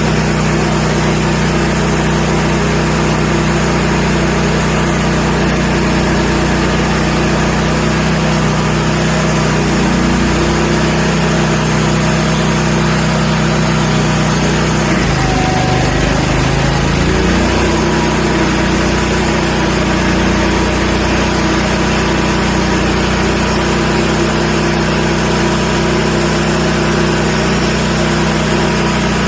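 Wood-Mizer LX150 bandsaw sawmill running steadily. About fifteen seconds in, its pitch drops briefly and comes back up about two seconds later, as a running engine does when a load pulls it down and then lets go.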